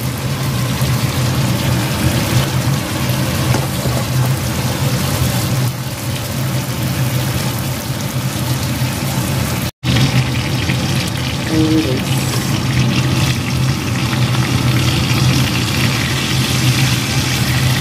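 Boneless chicken leg sizzling as it fries in butter in a wok: a steady hiss over a steady low hum, with a momentary cut-out about ten seconds in.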